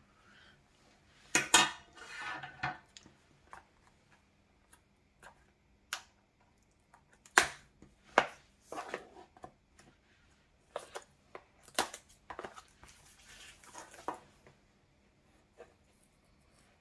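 Scissors and packaging handled on a hard surface: irregular sharp clicks and knocks with light rustling between them, the loudest about a second and a half in, near the middle and about twelve seconds in.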